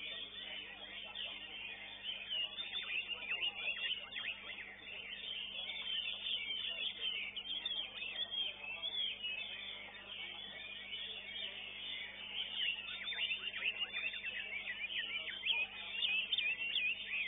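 Many caged competition songbirds singing at once: a dense, continuous chatter of quick chirps and whistled trills, over a steady low electrical hum.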